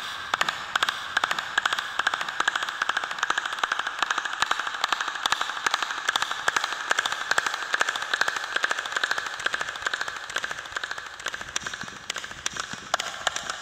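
Two people clapping fast with cupped hands, many sharp claps a second kept up without a break, thinning out a little near the end. The clapping is aimed at the steps of a stepped pyramid to call up its echo as a call to Quetzalcoatl.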